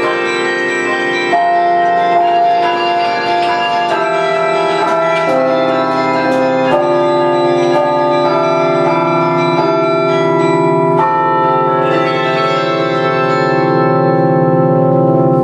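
A 47-bell Paccard carillon played from its baton keyboard: a quick succession of struck bell notes that ring on and overlap, with light clicks from the wooden keys. In the last few seconds low bells ring on with a slow throb.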